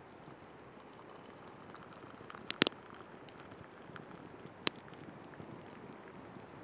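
Wood fire burning with a soft steady hiss and crackle, and a few sharp pops: a quick cluster about two and a half seconds in, and one more near five seconds.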